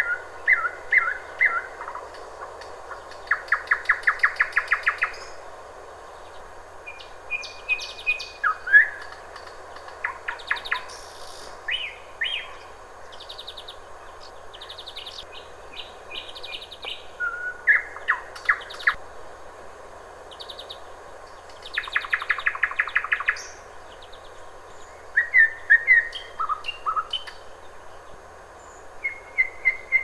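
Nightingale singing: separate phrases of clear whistles and fast runs of repeated notes, each phrase a second or two long and followed by a short pause.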